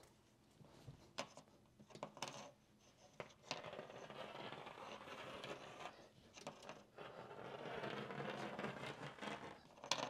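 Faint handling of a steel tape measure drawn out along a textured drywall wall: a few light clicks, then several seconds of scraping and rustling, with a sharper click near the end.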